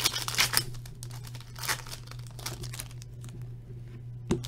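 Shiny wrapper of an Upper Deck hockey card pack crinkling and tearing as it is ripped open, loudest in the first second or two, then softer handling of the wrapper and cards with a sharp click near the end.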